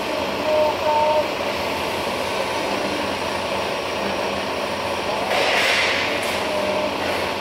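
Metal-cutting band saw and workshop machinery running with a steady noise, with two brief steady tones in the first second and a half and a short hiss about five seconds in.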